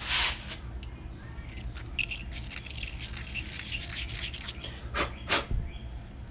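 A hand tool scraping and rubbing inside a sprocket nut to clean out its threads. There are short irregular scrapes and light metallic clicks, a louder scrape right at the start, and two sharp strokes about five seconds in.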